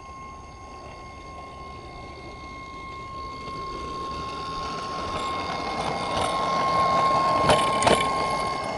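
Small radio-controlled 5-inch gauge railbus running along the track with a steady high-pitched whine, its running noise growing louder as it comes close. Near the end there are two sharp clacks about half a second apart as it passes.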